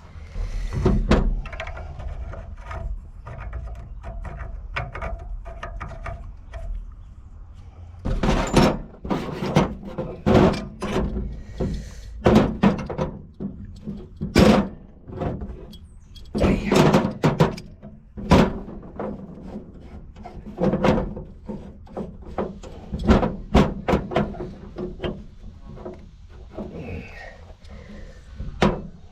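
Repeated knocks, clanks and scrapes of a wrench and fittings being handled and tightened while a backflow assembly is put together. The knocks are sparse at first and come thick and fast from about eight seconds in.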